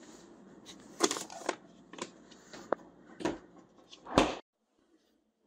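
Rummaging in a home freezer: a few light knocks and clatters as a frozen pint container is taken off the shelf, then a louder thump about four seconds in as the stainless-steel freezer door is shut.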